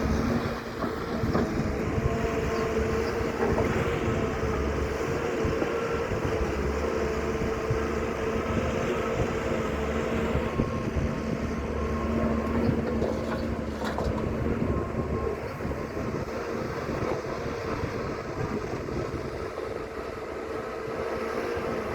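Excavator working: a steady engine drone with a constant hum.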